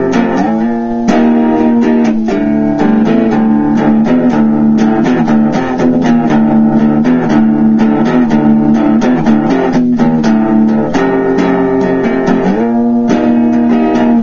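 Electric guitar in drop D tuning playing a rock riff: fast, steady picking of repeated notes on the lower strings, with a slide up the neck about twelve and a half seconds in.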